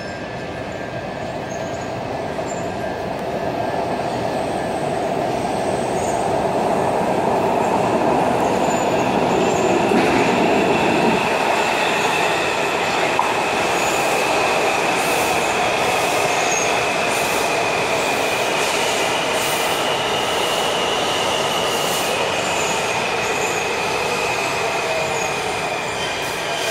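Washington Metro train arriving in an underground station: a rumble builds as it comes in, and about ten seconds in a steady high whine sets in and holds as the train runs along the platform and slows.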